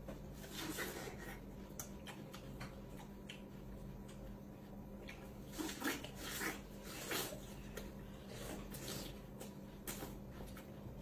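Close-up eating sounds of people biting into and slurping juicy fruit, in short scattered bursts, with a clump of them around the middle. A steady low hum runs underneath.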